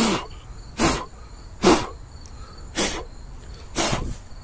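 A person blowing five short, hard puffs of breath, about a second apart, to clear razor-scraped lettering dust off the glass of an LED message writing board.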